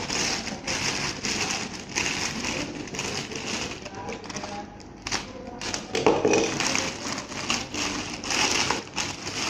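Plastic packaging bag crinkling and crackling as it is handled and opened by hand.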